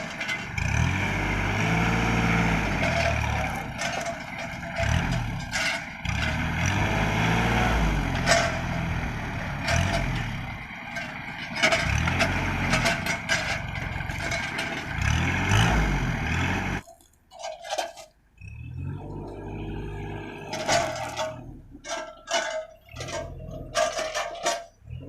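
Kubota L3200 tractor's diesel engine revving up and falling back again and again as it works the crane grabber, with scattered knocks and clatter. About 17 seconds in the sound drops out briefly and then picks up again.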